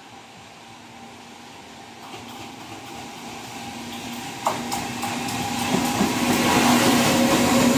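A JR Freight EF210 electric locomotive hauling a container freight train approaches and passes, growing steadily louder. There is a sharp knock about halfway through, and the wheels begin to clatter over the rails as the locomotive goes by near the end.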